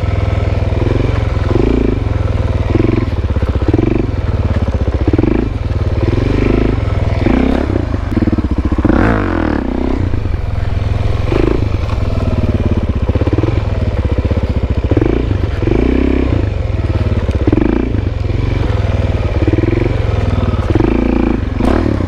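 Suzuki DR-Z400SM's single-cylinder four-stroke engine, breathing through a loud FMF PowerCore 4 aftermarket exhaust, rising and falling with repeated throttle pulses about once a second, as the bike is held in a circling wheelie.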